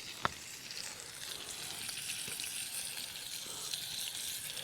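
Stuffed pork chop sizzling in hot olive oil in a pan over a campfire, a crackly frying hiss that gets a little louder about a second in. One sharp click about a quarter second in.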